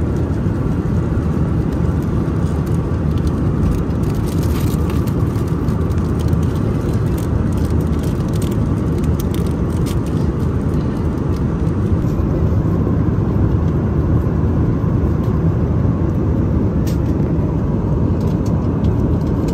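Steady low roar of an Airbus A320 cabin in flight, engines and airflow. A plastic snack packet crinkles now and then as it is opened.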